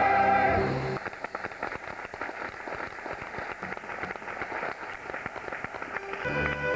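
A sung, held chord ends about a second in, then an audience applauds in a dense, even patter, and band music starts up again near the end.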